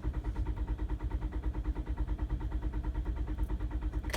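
Toyota Camry's starter motor cranking the engine in a steady, even rhythm without it catching, then cutting off abruptly at the end. The immobilizer is refusing the unprogrammed key, so the engine will not start.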